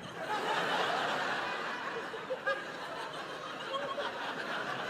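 Audience laughing, swelling just after the start and then slowly dying down.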